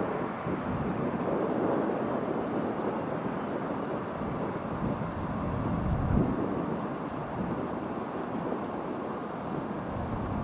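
Steady, distant rumble of a Boeing 777-200ER's two GE90-94B turbofans at approach power as the airliner comes in on final.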